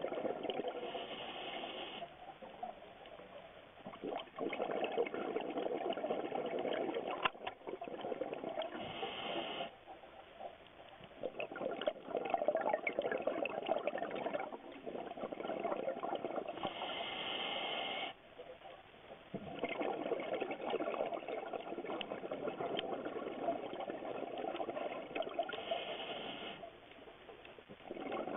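Scuba regulator breathing underwater: long stretches of bubbling exhalation alternating with a short high hiss and a brief lull about every eight seconds, four breath cycles in all.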